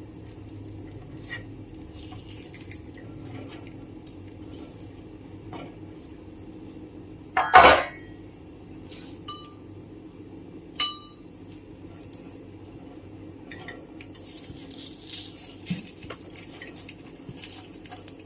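Metal spoon clinking and tapping against a gunta ponganalu (paniyaram) pan while the dumplings are turned over in their cups: light taps throughout, one loud clatter about seven and a half seconds in, and a short ringing clink near eleven seconds.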